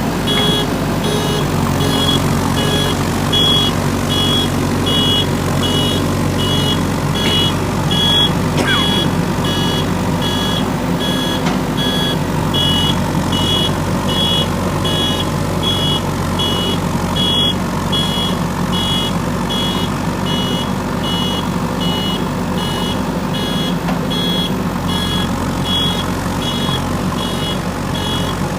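JCB 3DX backhoe loader's diesel engine running while it works, with its reversing alarm giving evenly spaced high beeps throughout.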